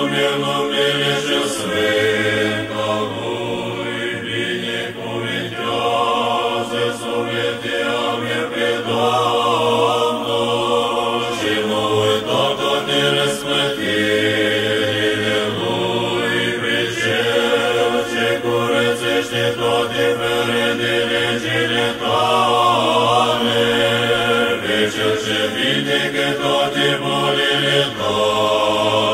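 Orthodox church choir chanting a cappella in Romanian, a melody sung over a held low drone that shifts pitch every few seconds.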